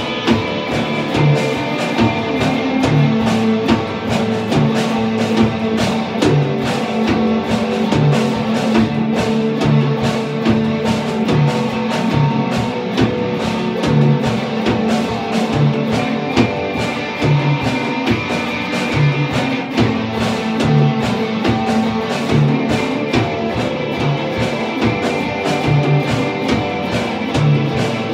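A small band playing live with two electric guitars and a Gretsch drum kit: instrumental punk–industrial metal, sustained guitar chords over a steady run of drum hits.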